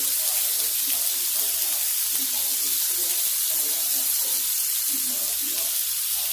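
Ham and onions sizzling steadily in a frying pan.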